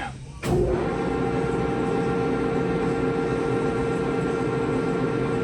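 Rotary magnetic chuck drive of a 1974 Blanchard No. 22-42 rotary surface grinder switching on with a sudden start about half a second in. It then runs steadily at 25 RPM with an even mechanical hum and whine.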